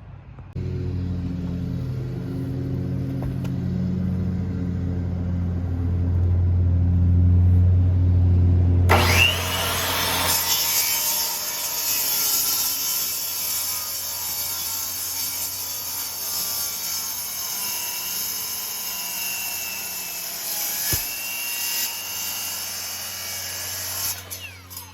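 Power saw cutting the burr off an elk antler. The motor hums steadily at first, then about nine seconds in the blade bites into the antler and a loud, harsh cutting noise runs until it stops just before the end.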